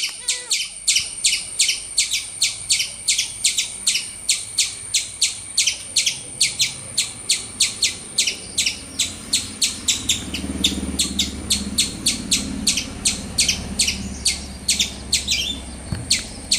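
A bird calling with short chirps repeated quickly and evenly, about three a second, over a steady high whine, with a low rumble in the middle part.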